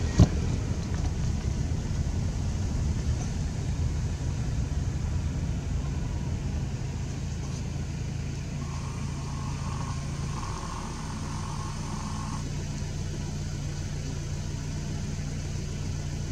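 Car engine running steadily at low revs, heard from inside the car, its low note shifting once about two-thirds of the way through. A single sharp click sounds just at the start.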